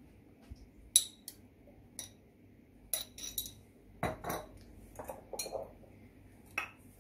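A metal spoon clinking and scraping against a bowl as ginger-garlic paste is knocked off onto raw chicken wings. The sharp clinks come about once a second.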